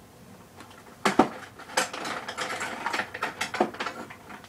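Rummaging through a drawer: small hard objects clicking and clattering irregularly, with a sharp knock about a second in.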